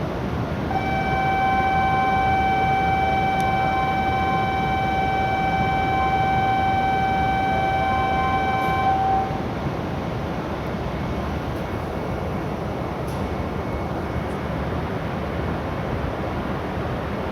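A steady electronic warning tone at one fixed pitch sounds for about eight seconds, beginning right after the closing announcement for the shinkansen's doors and platform gates, then cuts off. Steady platform and train rumble continues beneath it.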